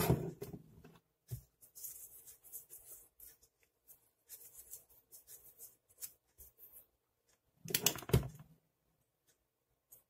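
Plastic parts of a Masterline SH-P1 hair dryer's housing being handled and fitted together: scattered light clicks and rustling, with two louder knocks, one at the start and one about eight seconds in.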